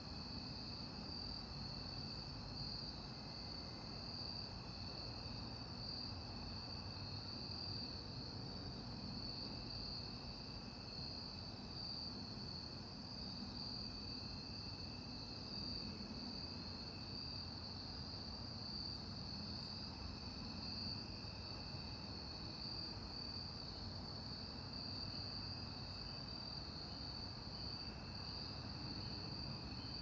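Crickets chirring in a steady, unbroken evening chorus: one high-pitched trill, with a second, lower and fainter trill beneath it, over a faint low background rumble.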